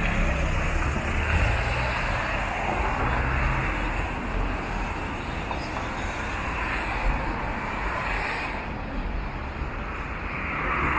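Steady city street traffic noise, cars and other road vehicles going by, with a low rumble that is heavier in the first few seconds.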